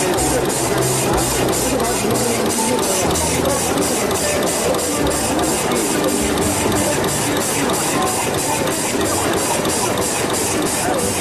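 Automatic hot-fix rhinestone setting machine running, its head and twin rotary stone feeders placing stones at an even rhythm of about three short high pulses a second over a steady mechanical clatter.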